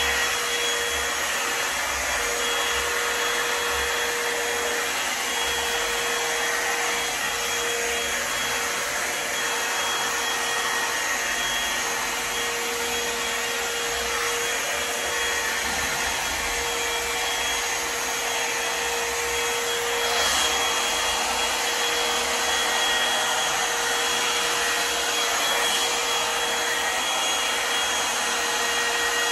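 Britânia hot-air brush dryer running steadily: a constant rush of air with a steady motor whine.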